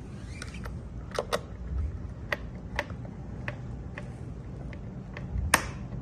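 Hand screwdriver turning a screw into a smart door lock's back panel: scattered sharp metallic clicks and taps, the loudest about five and a half seconds in.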